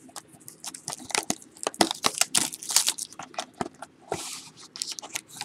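Crackling, crinkling and tearing of wrapping as a sealed box of trading cards is opened by hand, with a short hiss about four seconds in.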